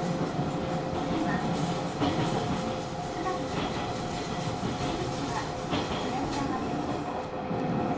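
Hanshin 5500 series electric train: a steady hum from its equipment, with two constant tones over a low rumble and a few scattered clicks and knocks.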